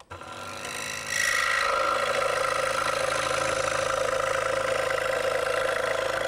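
DeWalt scroll saw running. It comes on quietly, then about a second in grows louder and holds steady as the reciprocating blade cuts into the wooden board.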